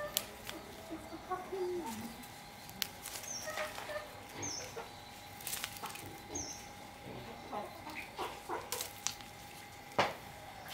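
Chickens clucking softly amid scattered clicks and knocks, with a few short high bird chirps and a faint steady hum underneath. A sharp knock comes near the end.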